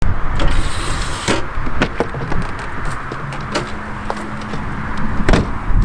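A motorhome's side habitation door being opened and a person stepping down out of it: a series of clicks and knocks from the latch, door and step, the loudest knock near the end.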